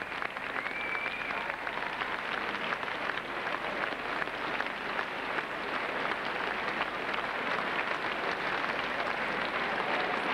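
Large audience applauding, a steady dense patter of many hands clapping.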